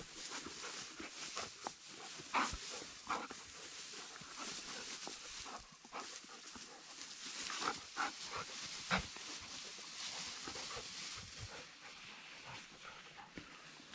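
Two dogs play-fighting in tall grass: a series of short, sharp dog sounds, bunched about two and a half seconds in and again around eight to nine seconds, over a steady rustle of grass.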